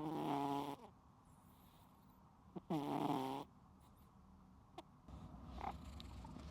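A sleeping cat snoring: two loud pitched snores, each just under a second long, about three seconds apart. Near the end a low rumble and a couple of faint clicks come in.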